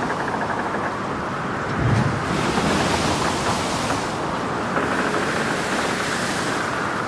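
Heavy seas washing against a ship: steady rushing water that surges every two to three seconds as swells break, with a low thud about two seconds in.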